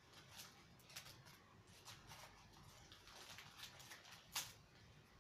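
Faint rustling and crinkling of a small parcel's packaging being opened by hand, in scattered soft crackles with one louder crackle near the end.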